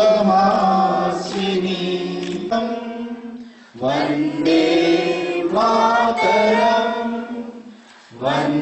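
A roomful of people singing a song together in unison, in long held notes, with two short pauses for breath, about three and a half seconds in and near the end.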